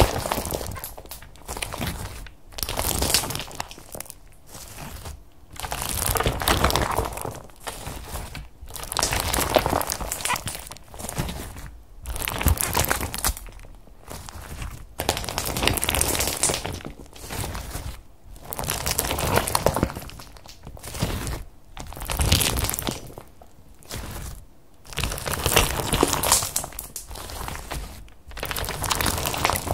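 Hands squeezing and kneading white foamy slime packed with small star-shaped beads: wet squishing with fine crackles, in repeated squeezes every second or two with short quiet gaps between them.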